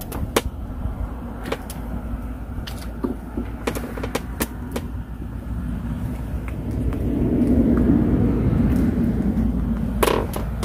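Handling noise as a hooked crucian carp is swung in on a pole rod and grabbed by hand: scattered sharp clicks and knocks over a steady low rumble, which swells in the second half, with a louder knock near the end.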